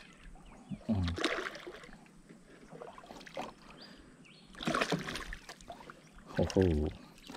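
A hooked ocellated snakehead splashing and thrashing at the surface as it is reeled in to the side of a wooden boat, in two noisy bursts about a second in and near five seconds.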